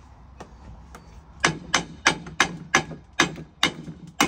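Hammer striking metal at a steel bench vise: a quiet start, then about eight sharp blows, each with a brief metallic ring, spaced roughly three a second.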